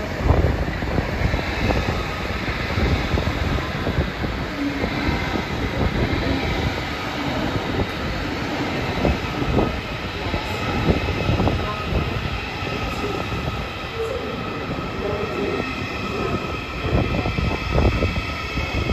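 ICE 4 (DB class 412) high-speed electric train rolling past along the platform track: a steady rumble of wheels on rail with repeated low thuds and a faint high whine that grows toward the end.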